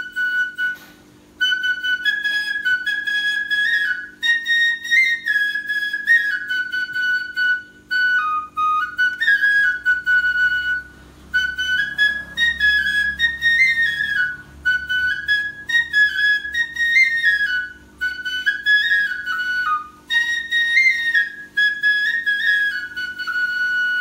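Background music: a flute playing a slow melody in short phrases of held, stepping notes, with a faint steady low drone beneath.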